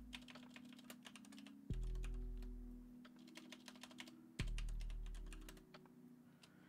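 Rapid typing on a G.Skill computer keyboard, clicking in quick runs with short pauses. Under it, a low sustained note sounds about every two and a half seconds and fades away each time, like background music.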